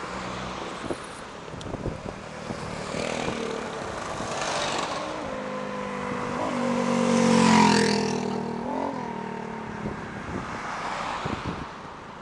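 Motor scooters and cars passing by one after another on an open road. The loudest passes about seven to eight seconds in, its engine note dropping in pitch as it goes by.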